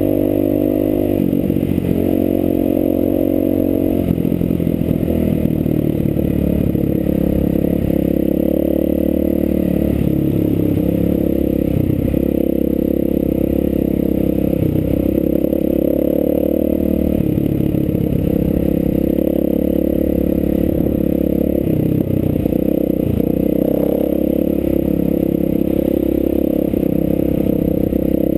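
Enduro motorcycle engine running under way at speed on a cobblestone road, with clatter from the stones. The engine note shifts a couple of times in the first few seconds, then holds steady.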